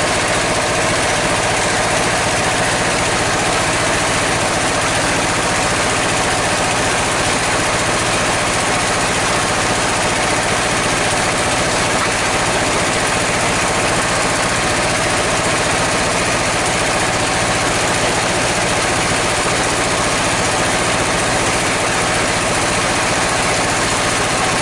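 Sawmill saw and its engine running loudly and steadily as a mahogany log is fed into it by hand, an even mechanical drone with no breaks.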